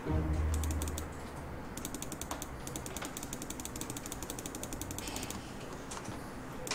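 Rapid, evenly spaced mechanical clicking in runs of a second or two, with a low hum in the first second.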